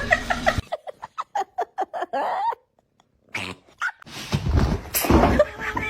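A quick run of short animal calls, about four a second, then a brief pause and a few louder noisy sounds near the end.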